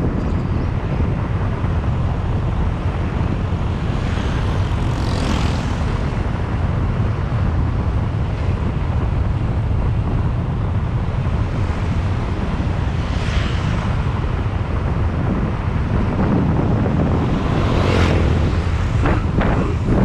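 Wind rushing over the microphone of a moving motorbike, with a steady low drone of engine and road beneath it. Three brief whooshes pass over it.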